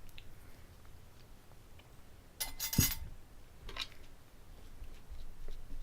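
Salt being dispensed onto food: a short gritty rattle about two and a half seconds in, then a fainter one about a second later, among light clicks of tableware.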